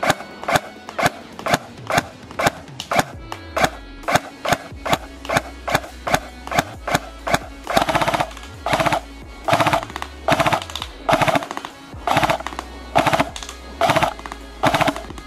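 Background music with a steady, punchy beat. A falling sweep about three seconds in leads into a deep bass line.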